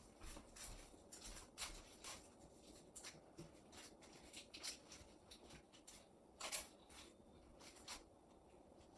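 Near silence, broken by faint scattered rustles and light clicks of something being handled, with one slightly louder rustle about six and a half seconds in.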